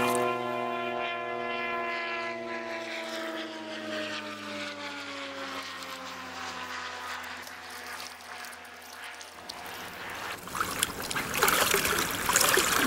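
A propeller airplane's engine drone passing over, falling slowly in pitch and fading out about nine seconds in. The rushing of the trout stream grows louder near the end.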